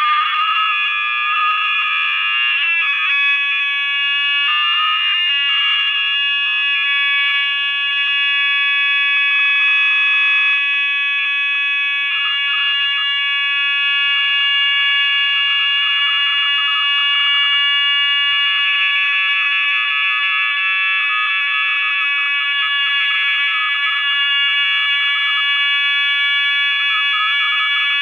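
Shrill electronic whine of several steady high tones stacked together, flickering and shifting now and then, like audio feedback building up as a phone plays back its own nested screen recordings.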